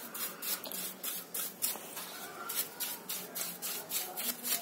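Small brush scrubbing a scooter carburetor's metal body, wet with cleaning fluid: a run of quick, irregular rubbing strokes.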